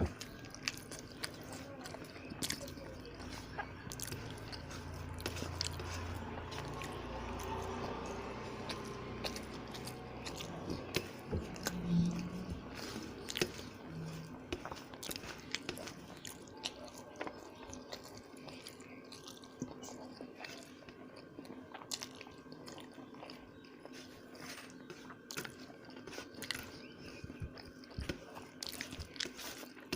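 Close-miked chewing and biting of a person eating rice with egg curry: a run of small wet mouth clicks and smacks, with a short low thump about twelve seconds in.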